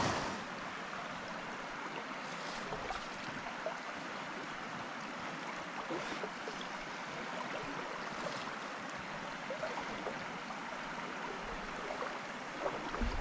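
Creek water flowing over a shallow riffle: a steady rush, with a couple of faint knocks near the end.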